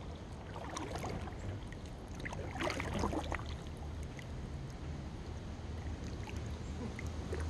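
Kayak paddle strokes in calm river water: the blade dipping in and dripping, with splashy bursts about a second in and again near the middle, over a steady low rumble.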